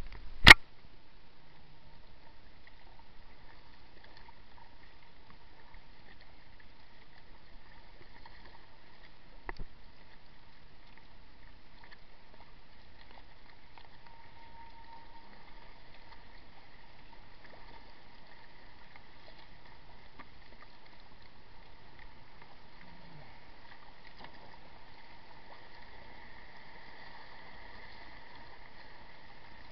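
Faint, steady wash of water against a paddled kayak's hull. A sharp knock comes right at the start and a smaller one about nine and a half seconds in.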